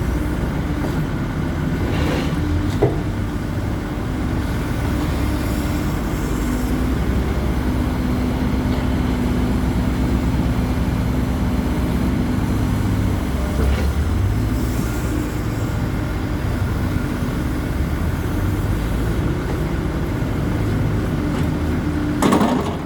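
Hidromek 140LC excavator running steadily as it digs, its engine and hydraulics working, with a few short knocks and clanks; the loudest knock comes near the end.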